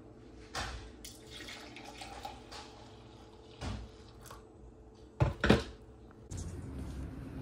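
Coffee being poured from a glass carafe into a ceramic mug, a soft liquid trickle. Then two loud clunks as the carafe is set back in the drip coffee maker, and a steady low background noise comes in near the end.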